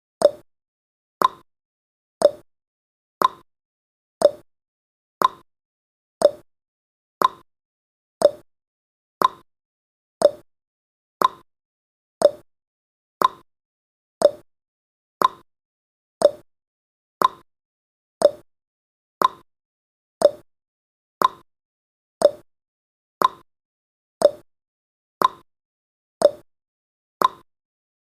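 A countdown timer's tick sound effect: one short, sharp tick every second, evenly spaced.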